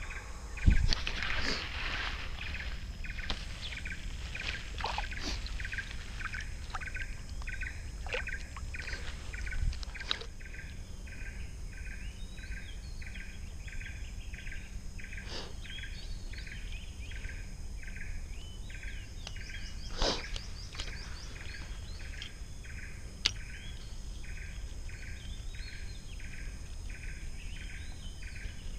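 An animal call repeating in short, even pulses, about three every two seconds, over a steady outdoor background. A few sharp clicks and knocks break in, the loudest about a second in and about two-thirds of the way through.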